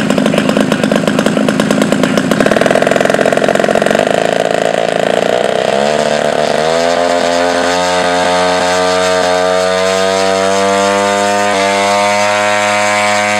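Aircraft engine running fast, then throttled back about six seconds in, its pitch dropping steeply before it settles into a steady idle.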